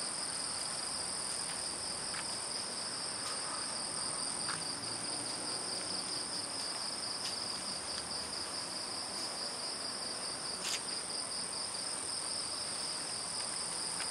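Night insects chirring without a break in two high-pitched bands, the lower one a fast pulsing trill. A few faint clicks are heard, the clearest about eleven seconds in.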